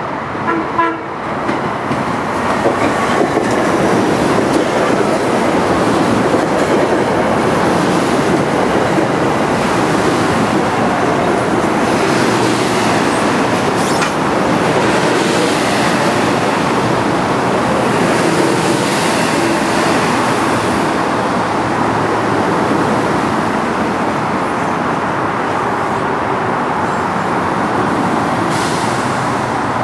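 Metro-North M2 electric multiple-unit train running into the station, with a steady rush of wheels and traction gear and some rail clatter.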